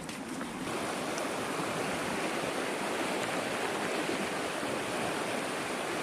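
Fast mountain stream rushing over rocks: a steady hiss of running water that comes up about a second in and holds even.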